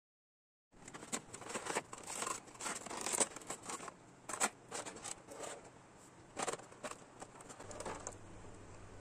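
Clear plastic blister tray and packaging crinkling and rustling as an action figure is handled and lifted out of it, in irregular crackly bursts that die down near the end.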